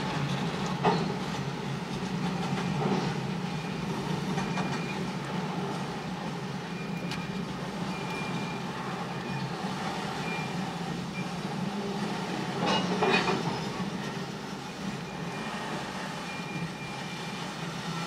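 CN freight train of loaded bulkhead flatcars rolling steadily past, its steel wheels rumbling and clacking over the rails, heard from inside a car. A faint high squeal comes and goes, and there is a louder clatter about a second in and again around two-thirds of the way through.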